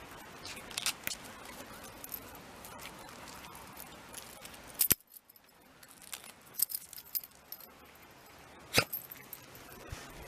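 Light metallic clinks and jingles from a Shiba Inu's collar tag as the dog noses at the ground and moves, with sharp clicks about five seconds in and again near nine seconds.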